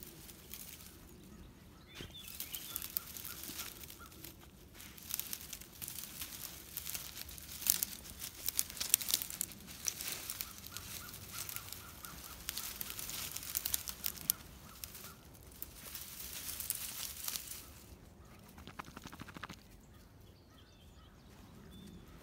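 Dry brush and twigs crackling and rustling as a beagle pushes through a brush pile, a dense run of sharp snapping crackles that dies down near the end.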